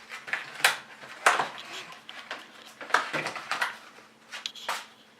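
A boxed RAM kit's packaging being opened by hand: an irregular string of scrapes, clicks and rustles, with four sharper ones spread through.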